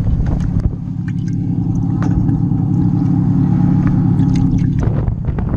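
Steady low mechanical hum, like a motor running, that starts about a second in and cuts off suddenly near the end, with a few light clicks and knocks over it.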